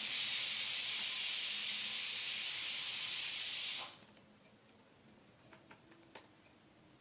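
A steady, loud hiss lasting about four seconds that starts and cuts off abruptly, followed by a few faint clicks.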